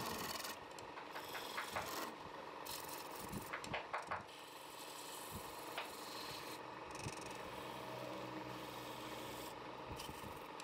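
Wood lathe running with a tool rubbing and scraping against the spinning wood, with a cluster of sharp clicks about two to four seconds in.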